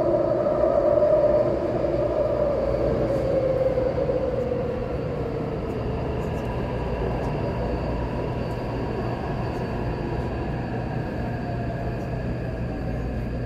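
Taipei Metro C381 steel-wheel metro train heard from inside the car while running. A strong motor whine falls in pitch and fades over the first few seconds as the train slows for the next station, leaving a steadier, quieter rumble of wheels on rail.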